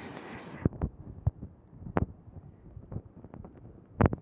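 Irregular dull thumps and knocks from fishing net and its floats being handled in a boat, with a short hissing rustle at the start.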